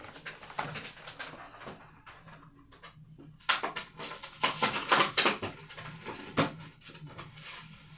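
Aluminium beer can being handled and cracked open. Quiet rustling at first, then from about three and a half seconds in a string of sharp clicks and taps.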